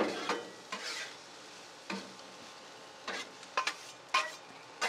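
Two metal spatulas scraping and clacking on a Blackstone flat-top griddle as chopped onions, peppers and cabbage are tossed: several sharp scrapes at uneven intervals over a faint steady sizzle of the frying vegetables.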